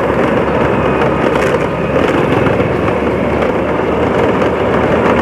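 Steady rush of wind and road noise from a moving motorcycle, picked up by a chest-mounted smartphone's microphone, with the engine running underneath.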